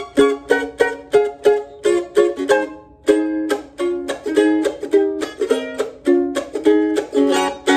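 Weber Road Dog F-style mandolin, red spruce top with maple back and sides, played with a pick: a quick run of single notes, then ringing chords struck over and over from about three seconds in.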